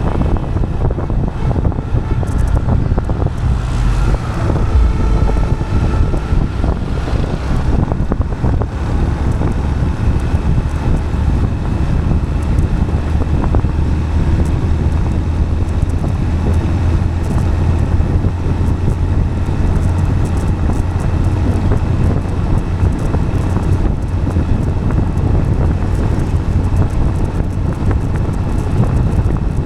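Steady low rumble of tyres rolling on asphalt, with wind buffeting the microphone.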